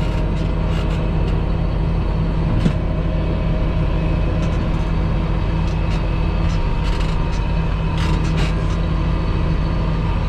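Tractor engine running steadily under load, heard from inside the cab, driving a trailed disc mower-conditioner through third-cut hay. An even hum, with a few faint ticks.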